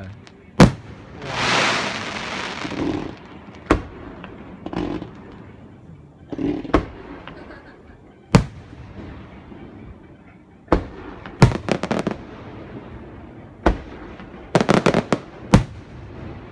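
Fireworks going off: a series of sharp bangs a second or more apart, with a loud rushing hiss about a second in and a rapid string of cracks near the end.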